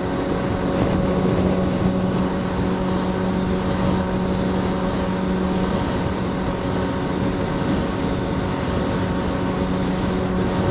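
Motorcycle engine running at a steady cruising speed, a constant hum with wind noise over it.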